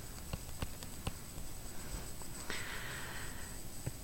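Quiet room tone in a pause of speech, with a few faint clicks and, about two and a half seconds in, a soft hiss lasting about a second.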